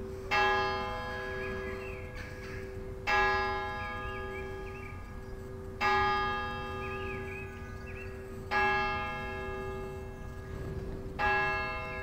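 A single church bell tolling slowly on the same note, five strokes about every two and a half to three seconds. Each stroke rings on and fades before the next, over a steady hum.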